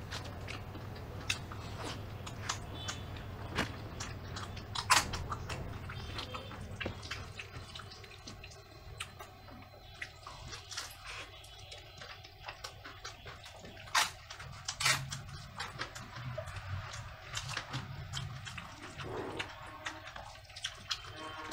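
Close-miked eating by hand: wet chewing and lip-smacking, and fingers squishing rice in runny kadhi curry. Small irregular clicks throughout, with a few sharper, louder smacks or crunches about five seconds in and again around fourteen to fifteen seconds.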